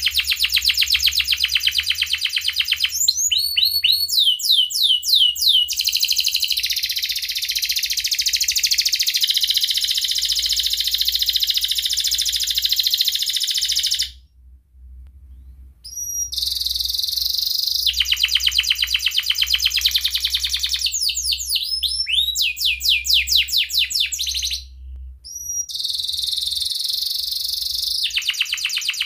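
Domestic canary singing a long song of fast trills, runs of rapidly repeated high notes mixed with swooping whistled notes. The song breaks off for about two seconds about halfway through and briefly again near the end.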